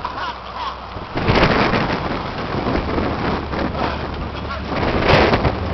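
Pickup truck driving through a large puddle: a loud rush of splashing, spraying water starts about a second in and surges again near the end, with the truck's engine running under it.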